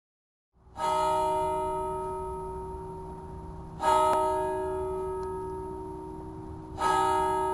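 A bell struck three times, about three seconds apart, each stroke ringing on and slowly fading before the next.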